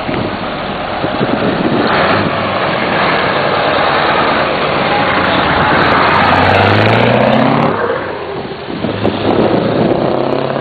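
Scania 144 530's V8 diesel pulling hard under acceleration, loud, with its turbo sound over the engine. The engine pitch climbs for a few seconds, falls away suddenly about eight seconds in as the truck shifts gear, then starts building again.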